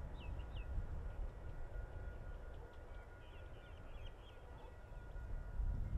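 Low, steady rumble of a heritage passenger train rolling past in the distance, easing a little mid-way, with small birds chirping over it: a few quick calls just after the start and a twittering run in the middle.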